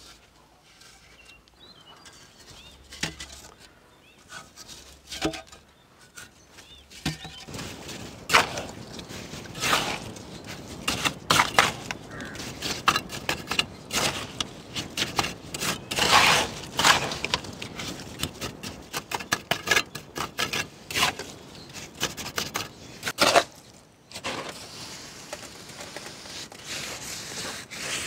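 Bricklaying by hand: fired clay bricks knocked into place and cement mortar scooped from a metal pan and spread by hand and trowel. The knocks, clicks and scrapes are sparse at first and come thick and fast from about seven seconds in.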